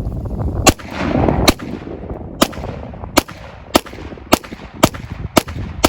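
Ruger Mark IV .22 Long Rifle semi-automatic pistol firing about nine shots in steady succession, roughly one every half second to second.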